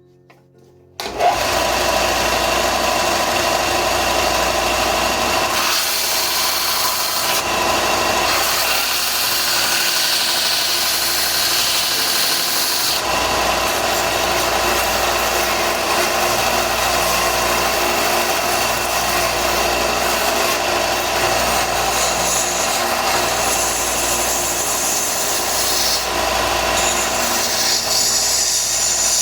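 Belt grinder running with a knife handle pressed against the belt to sand and shape it. It starts suddenly about a second in and runs steadily, the grinding noise brightening and easing a few times as the work is pressed and moved, and cuts off sharply at the very end.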